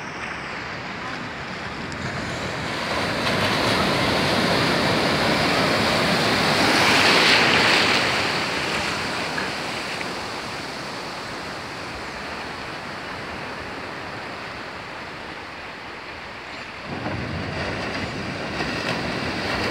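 Sea surf breaking and washing over the shallows. It swells to its loudest about seven seconds in, eases off, then builds again near the end.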